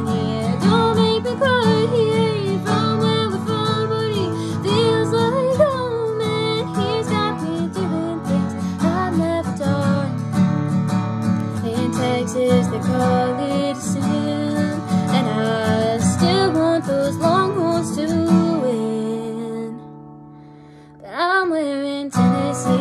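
A female voice singing a country song over a strummed acoustic guitar. Near the end the music drops away briefly, then a strum and the singing come back in.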